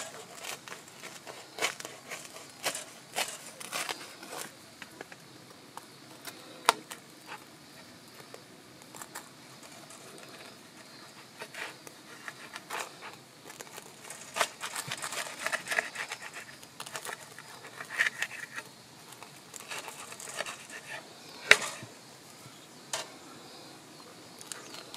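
Knife cutting through a crisp toasted hot sandwich: irregular crunches and crackles of the toasted crust, with scattered sharp clicks, the loudest about two-thirds of the way through.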